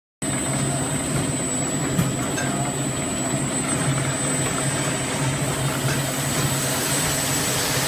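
Adhesive-tape roll cutting machine running steadily: a constant hum from its electric motor drive, with a thin steady high whine over it.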